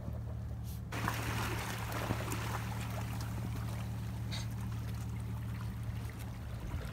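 Sea water washing and trickling among shoreline rocks, a steady rushing that comes up suddenly about a second in, over a steady low hum. A few faint clicks sound through it.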